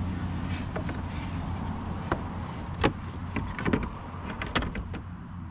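Steady low hum of a car, with a series of irregular clicks and knocks in the second half as the hum fades.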